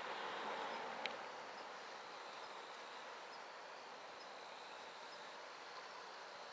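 Faint, steady outdoor night background with a thin high tone, and one short sharp click about a second in.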